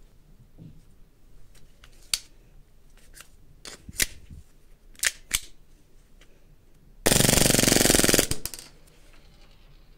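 An airsoft pistol in a carbine kit is handled with a few sharp clicks, then fires one loud rapid full-auto burst of about a second, about seven seconds in.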